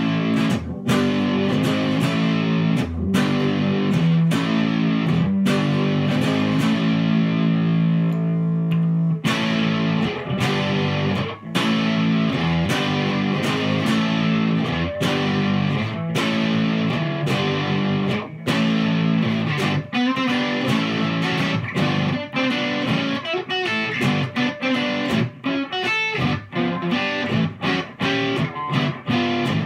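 1962 Framus New Sound semi-hollow electric guitar, amplified, played as an improvised jam: chords left to ring and picked single notes, with quicker strumming in the second half.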